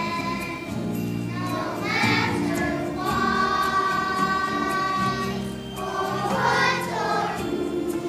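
Children's choir singing a song in long held notes over instrumental accompaniment.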